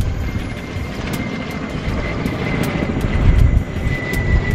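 Aircraft engine drone: a deep, strong rumble with a steady high whine over it.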